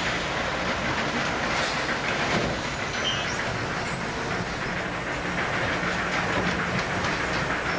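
Automatic sack-palletizing machine running: a steady mechanical clatter and hum with scattered clicks, and a thin high whine coming in about three seconds in.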